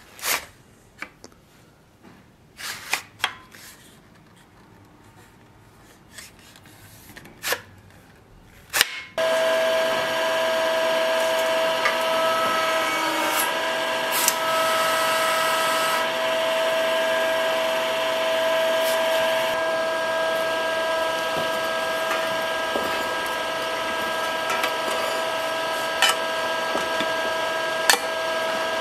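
A few light clicks and knocks of metal being handled, then about nine seconds in the electric motor of a metal-forming press starts and runs steadily with a constant whine.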